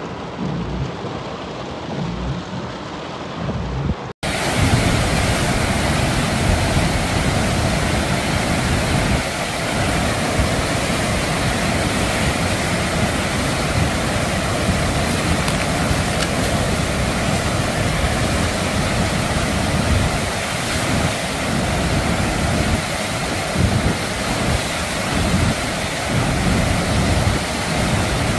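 Heavy rain and running water on a flooded street, then, after a sudden cut about four seconds in, the louder, steady rush of brown floodwater pouring through a concrete stream channel in spate.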